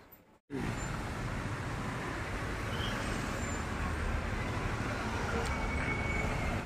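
Steady road traffic noise, a constant rumble that starts abruptly about half a second in and cuts off at the end.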